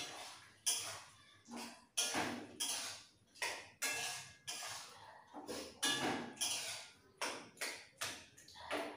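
Metal spatula scraping and knocking against a karahi while stirring, at about two strokes a second, each with a faint metallic ring.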